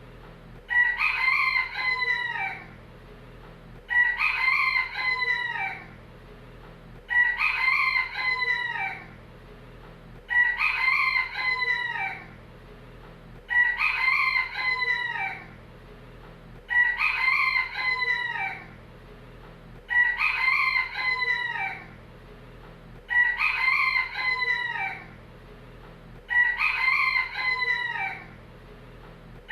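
Rooster crowing, the same cock-a-doodle-doo repeated at even spacing about every three seconds, nine times, each crow lasting about two seconds and dropping in pitch at its end.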